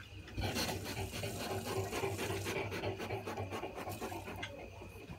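Porcupines gnawing and chewing their food: a dense rasping, scratching crunch that swells about half a second in and is loudest through the first half before easing off.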